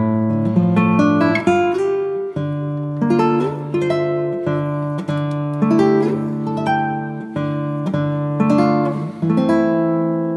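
Background music played on a plucked acoustic guitar: picked melody notes over held bass notes.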